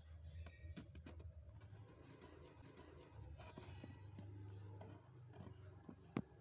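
Faint scratching and soft crackling of frost as fingers handle a frost-coated ice block in a frosted-up freezer, with scattered small ticks, a sharp click near the end, and a low steady hum underneath.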